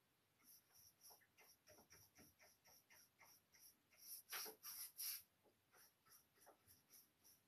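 Faint, quick rubbing strokes of an applicator wiping sealing wax across the painted wooden lid of a cedar chest, about four strokes a second, with a few harder strokes around four seconds in.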